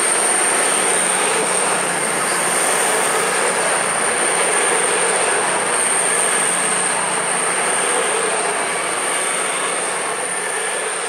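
East Midlands Trains Class 222 Meridian diesel multiple unit running past: a loud, steady rush of wheel, rail and underfloor engine noise with a thin high whine over it. It begins to fade near the end as the last carriages go by.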